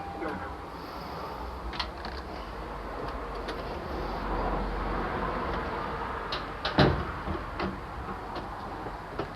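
Hold-to-run lift and its door in use: a low rumble with scattered clicks and rattles, and a loud clunk about seven seconds in.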